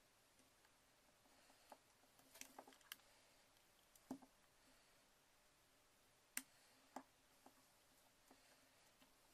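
Near silence broken by scattered faint clicks and taps as a plastic MacBook MagSafe power adapter with bared cord wires is handled and turned over. The sharpest clicks come about four seconds in and again after six seconds.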